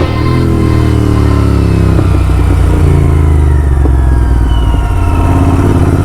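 Royal Enfield GT 650 parallel-twin engine through a loud Red Rooster aftermarket exhaust, running under way with its pitch falling slowly and steadily as the revs drop.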